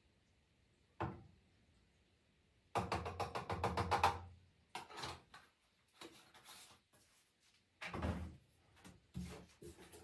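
Plastic bottles and laundry items handled on top of a washing machine: a click about a second in, a rapid rattle lasting about a second and a half, then a few knocks and bumps as bottles are picked up and set down.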